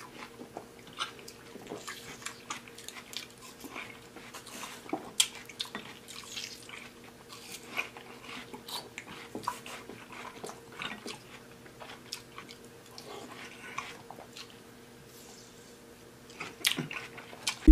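Chewing and biting of watermelon chunks: irregular short mouth clicks and smacks throughout, over a faint steady hum.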